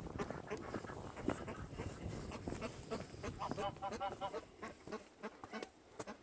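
Domestic duck quacking, a quick run of about seven short calls about three and a half seconds in, amid scattered scuffling and knocking.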